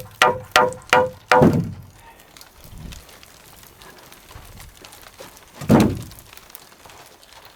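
Hammer blows in quick succession, about three a second, each ringing with a short metallic tone, as when driving a nail. A heavier, duller blow ends the run about a second and a half in, and one more dull blow lands near six seconds.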